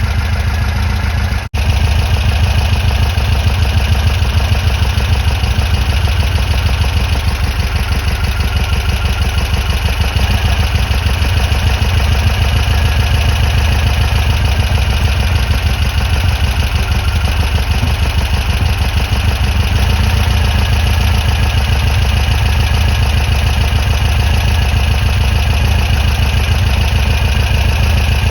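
Air-cooled flat-four engine of a 1963 VW 23-window bus idling steadily with an even pulsing beat. The sound cuts out for an instant about a second and a half in.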